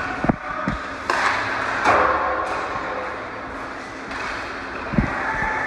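Ambience of a team game in play: a steady wash of background noise with a few dull thuds, one pair about a third of a second apart just after the start and another about five seconds in.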